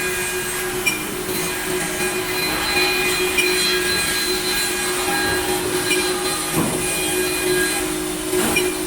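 Five-axis twin-head CNC wood machining center running, its spindles giving a steady whine over the noise of cutting a curved wooden part. The pitch wavers briefly near the end.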